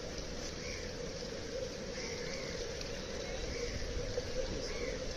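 Steady outdoor noise of a flooded street, with faint short chirps about once a second.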